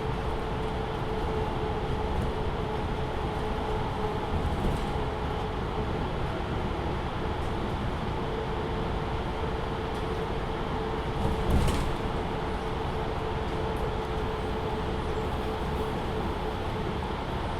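Inside a MAN Lion's City A37 city bus with its engine running: a steady low rumble with a constant humming tone, and one short knock about twelve seconds in.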